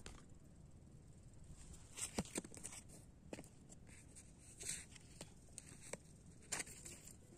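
Faint scattered crackles and rustles over a quiet steady background, with a cluster of sharper ones about two seconds in and a few more spread through the rest.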